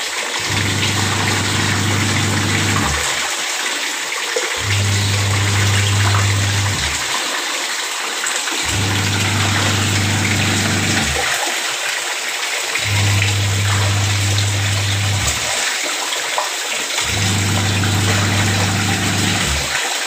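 Whirlpool Magic Clean 6.0 kg washing machine's wash motor humming in on-off spells: about two seconds running, a pause of one to two seconds, five times over. Water pours steadily into the tub throughout.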